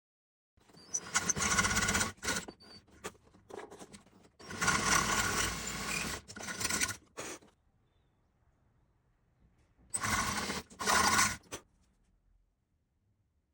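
Scraping strokes of a centre-line marking jig being slid along a wooden board, three longer scrapes with a few short clicks and knocks between them.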